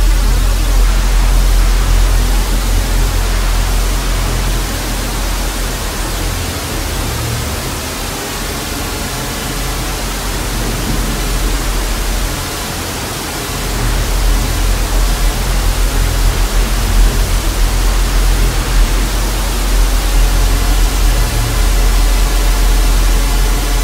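Loud TV static hiss over a deep bass drone; the bass drops away for a few seconds in the middle, then comes back.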